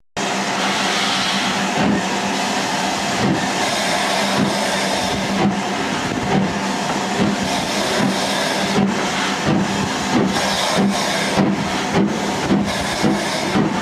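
Steam locomotive pulling away from a station, its exhaust beats quickening from about one a second to about two a second as it gathers speed, over a continuous hiss of steam and running noise.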